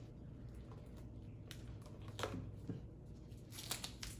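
Faint scraping and peeling as old double-sided tape is worked off the plastic face of a car side-mirror, in a few short strokes about a second and a half in, around two seconds in and near the end, over a low steady hum.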